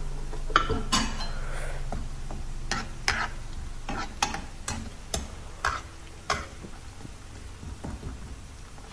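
A spatula stirring onions and ginger frying in oil in a non-stick frying pan, with sharp knocks and scrapes of the utensil against the pan about every half second over a faint sizzle. The knocks thin out near the end.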